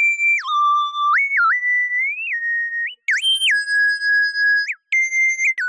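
Solo electronic melody: a single high, pure tone that slides between held notes, with no beat or accompaniment. It breaks off briefly twice.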